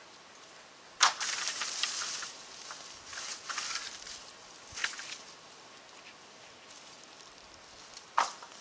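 Crackling and rustling noise over a steady hiss, with a sharp snap about a second in, another about five seconds in and a third near the end.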